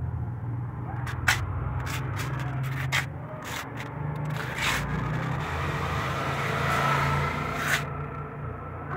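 Steel leaf-spring kukri blade clinking and scraping against a steel bench vise as it is set and clamped, a series of sharp clicks with a longer scrape near the end, over a steady low rumble.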